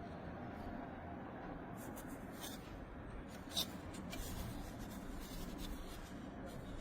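Light rubbing and handling noises, with scattered small clicks and one sharper click about three and a half seconds in, over a steady low background hum.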